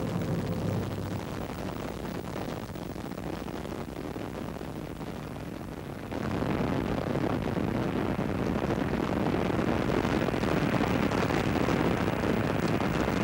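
Space Shuttle Columbia's rocket roar during ascent, from its solid rocket boosters and main engines: a steady, even rumble heard from a distance. It grows louder and fuller about six seconds in.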